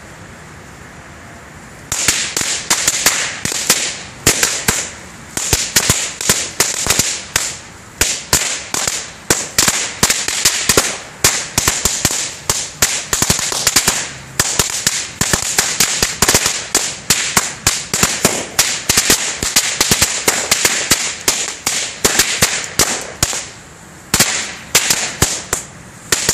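Keller Megamatte 200-shot firecracker string going off: a rapid, irregular string of sharp bangs that starts about two seconds in and runs on with short pauses.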